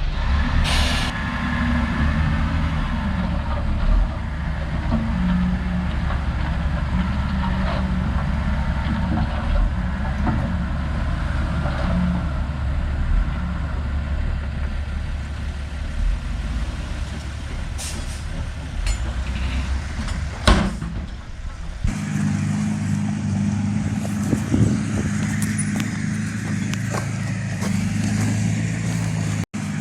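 Diesel engine of heavy machinery running steadily, with a few short knocks; about three-quarters of the way through the engine sound changes abruptly to a different, steadier hum.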